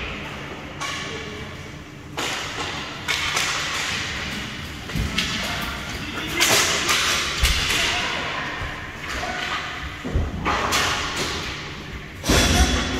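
Hockey game play: sharp cracks of sticks hitting the puck and thuds of the puck and players against the boards, a string of separate impacts at irregular intervals over the steady noise of the rink.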